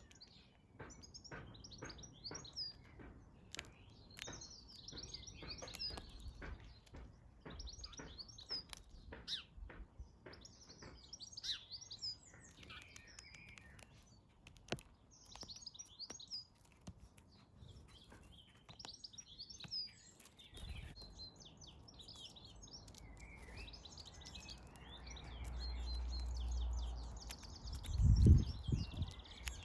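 Small garden birds chirping and twittering, with quick high chirps running on throughout and many short, sharp clicks through the first two-thirds. A low rumble builds near the end, then a single low thump, the loudest sound.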